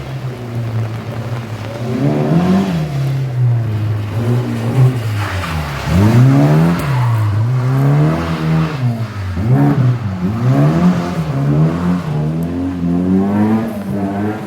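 Car engine running steadily for about two seconds, then revved up and down over and over, its pitch swinging high and low in quick succession.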